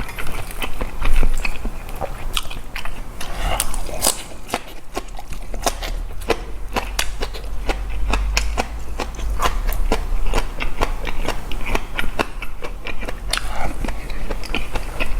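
A person biting and chewing food close to the microphone, with many short, crisp, irregular crunches.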